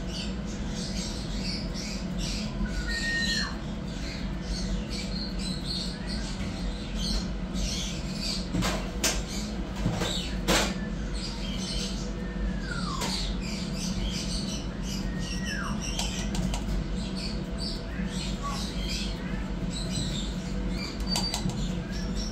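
Kittens mewing: a few short mews falling in pitch among scattered high squeaks, over a steady low hum, with a couple of soft clicks near the middle.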